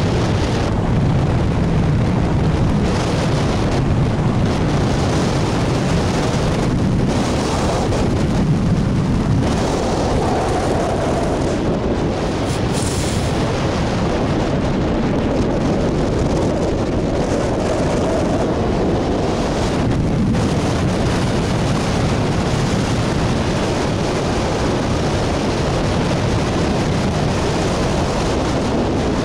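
Airflow of a hang glider in flight buffeting the microphone of a camera mounted on the wing: a loud, steady rush of wind noise, heaviest in the low end.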